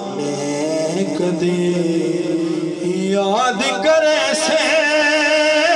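A man sings a Punjabi devotional kalam (naat) through a microphone and sound system. He holds a long note, then about three seconds in his voice rises into a wavering, ornamented phrase.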